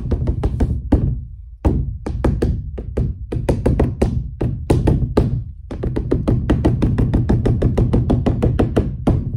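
A stretched painting canvas drummed rapidly with a paint spreader, about seven strikes a second, with two short breaks, one about a second in and one about five seconds in, stopping near the end.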